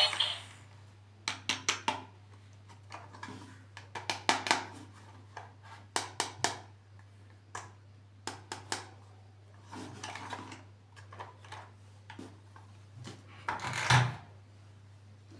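Hands handling plastic toy packaging and figures: a series of light clicks and taps in small clusters, with a longer, louder rustle near the end.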